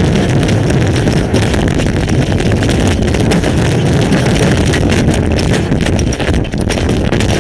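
Severe storm wind buffeting a webcam microphone, a loud rumbling rush, with wind-driven hail and rain pelting the camera in a dense, irregular patter of hits.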